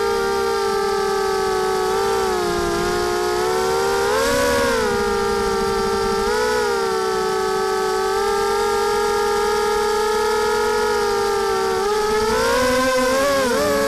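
The Mini H quadcopter's four T-Motor 2206 brushless motors and two-blade props whining steadily in flight. The pitch rises briefly about four and a half seconds in, again at about six and a half, and wavers up and down near the end as the throttle changes.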